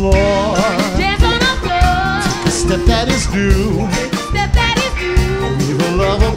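Live rock band playing a TV theme song: drum kit, guitars and keyboards, with a voice singing over them.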